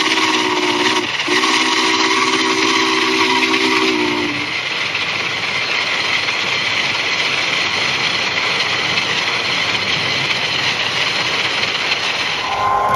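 Model Union Pacific 844 steam locomotive sounding its chime whistle: a blast that ends about a second in, then a long blast of about three seconds, over a steady hiss.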